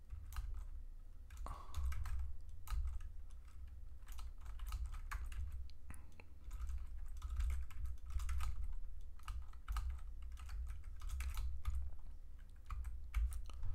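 Typing on a computer keyboard: irregular runs of quick keystrokes with short pauses between them, over a low rumble.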